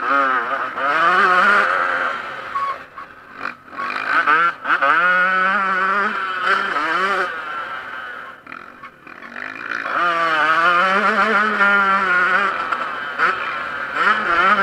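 Yamaha YZ125 two-stroke motocross bike engine revving hard under race throttle. Its pitch climbs and falls in repeated sweeps as the rider shifts and gets on and off the throttle, with two short backings-off, about three seconds in and again past eight seconds.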